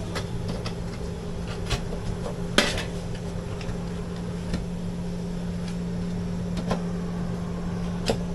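HVAC air handler running with a steady hum, broken by scattered clicks and knocks from handling, the loudest about two and a half seconds in.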